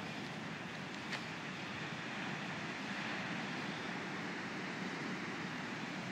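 Steady roar of heavy ocean surf breaking, swelling slightly a couple of seconds in, with one small click about a second in.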